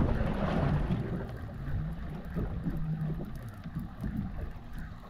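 Wind buffeting the microphone on an open fishing boat at sea: an uneven low rumble, strongest in the first second, with a faint hum that comes and goes in the middle.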